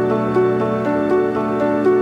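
Soft instrumental background music of held, sustained chords whose notes change every half second or so, with a faint regular tick.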